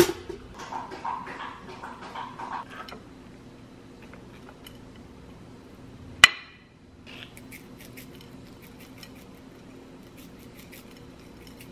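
A single sharp knock with a brief ring about six seconds in, followed by a run of light clicks, over a steady low hum.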